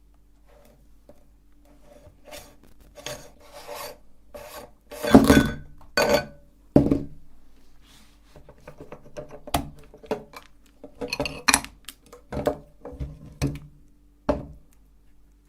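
Irregular scraping and rasping strokes, a dozen or so with uneven gaps, the loudest about a third of the way in, over a faint steady hum.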